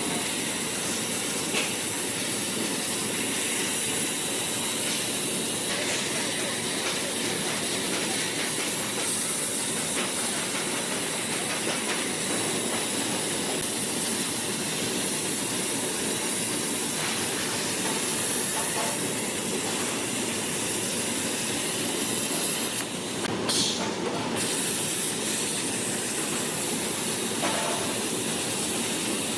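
Plasma cutter cutting sheet metal: a steady, hissing arc with a brief break in the sound about three-quarters of the way through.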